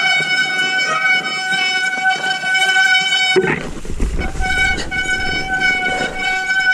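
Mountain bike disc brakes squealing in a steady high-pitched tone as the brakes are held on a snowy descent. The squeal breaks off for about a second roughly halfway through, under a low rumble, then comes back.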